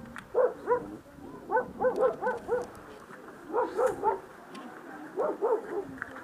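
A dog barking in quick runs of two to five short barks, with brief pauses between the runs.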